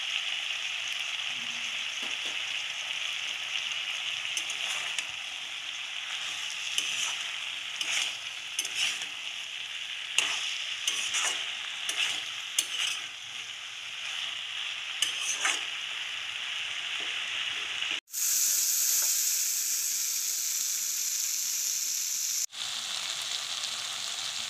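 Taro stolons and potatoes sizzling in oil in a kadai, with a steel spatula clicking and scraping against the pan as they are stirred, mostly in the middle stretch. At about 18 s the sound cuts to a louder, higher hiss for about four seconds, then cuts back.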